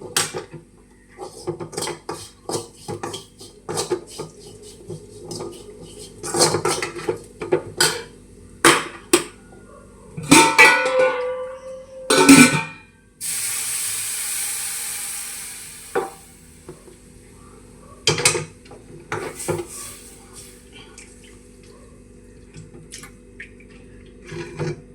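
A spoon knocking and scraping in a cooking pan as onions and masala are stirred, in irregular clatters with a louder run of knocks about ten seconds in. A steady hiss lasts about three seconds midway.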